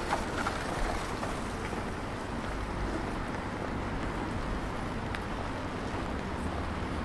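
Rainy town-square street ambience: a steady hiss with a low rumble, like distant traffic on wet streets, and a few faint clicks near the start and about five seconds in.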